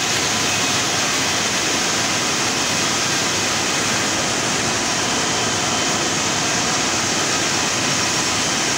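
Rows of tea-factory leaf-cutting machines and their leaf conveyor belts running together as one loud, steady, unbroken machine noise.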